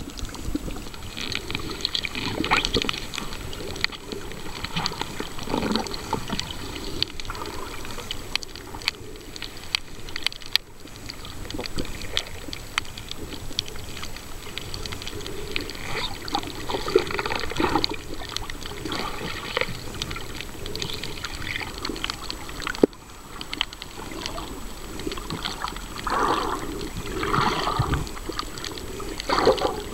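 Water noise picked up by a camera held underwater: an irregular sloshing rush that swells and fades, with scattered clicks.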